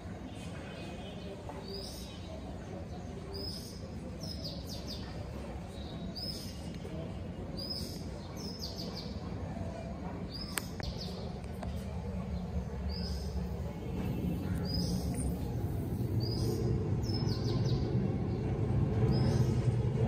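A small bird chirping over and over, a short high falling note about every second and a half, over a low background rumble that grows louder in the last third.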